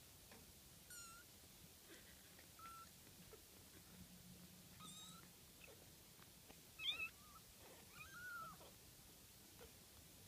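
Young kittens mewing: about five short, thin, high-pitched mews, the loudest about seven seconds in, followed by a longer mew that rises and falls.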